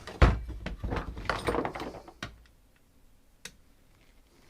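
A hard knock, then about two seconds of clattering and rattling as hard parts and tools are handled on a workbench during the teardown of an electronics docking station. A single sharp click follows a little later.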